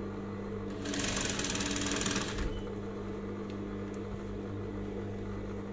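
Industrial sewing machine stitching a seam: one run of about a second and a half of fast, even needle chatter, over a steady low hum.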